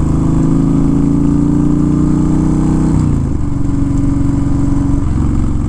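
Honda Fury's V-twin engine running while the motorcycle is ridden, its pitch climbing slowly, then dropping about three seconds in and holding steady, with another small change near the end.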